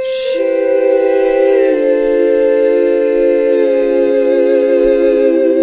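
A choir-like chord of sustained sung or hummed voices. One high note is held while lower notes join about half a second in and shift in steps every couple of seconds.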